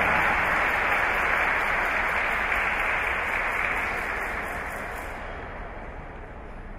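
Spectators applauding in an ice rink, the clapping fading away steadily over the last few seconds.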